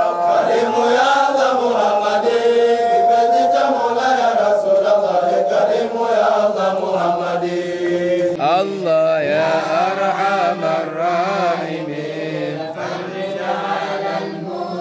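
Voices chanting an Islamic devotional song in long melodic lines, laid over as a soundtrack. A little past halfway the sound changes abruptly, as if cut to another part of the recording.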